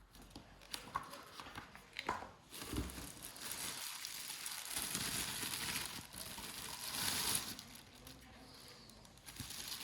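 Vacuum cleaner packaging being unpacked by hand: a few clicks and knocks, then a long stretch of crinkling and rustling that is loudest about seven seconds in.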